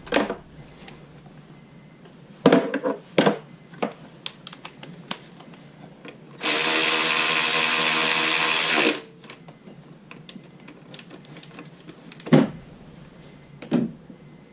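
A handheld power driver runs steadily for about two and a half seconds, snugging an ignition coil hold-down bolt, with a few clicks and knocks of tools and parts before and after.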